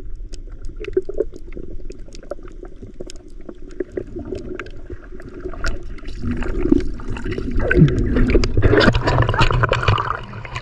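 Water heard through a camera held underwater while snorkelling: a muffled churning and gurgling with scattered sharp clicks, turning into louder splashing near the end as the camera comes up through the surface.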